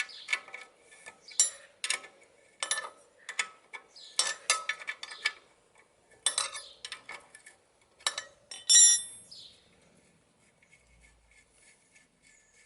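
Sharp metal clinks and rattles of nuts, a spanner and the fork-bottom spindle clamp cap being taken off a Triumph T140's fork leg, with one louder ringing clink about nine seconds in.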